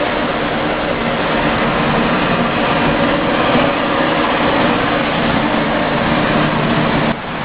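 John Deere 6930 Premium tractor's six-cylinder diesel running steadily at working revs under ploughing load, heard from inside the cab. The level dips briefly near the end.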